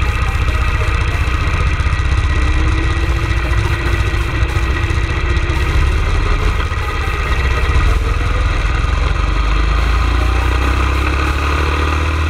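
Go-kart engine running loud and steady at speed, heard close up from the kart itself, with wind and tyre noise over it.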